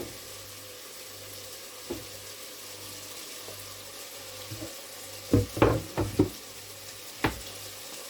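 Chopped vegetables frying in olive oil in a pot, a steady soft sizzle. A cluster of sharp clattering knocks comes about five seconds in, and one more near the end.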